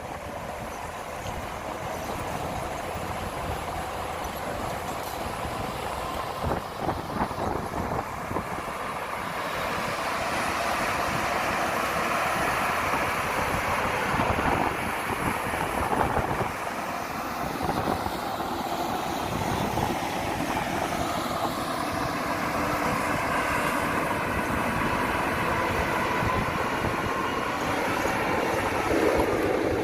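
Heavy earthmoving machinery running, the diesel engine noise growing louder about ten seconds in and holding steady.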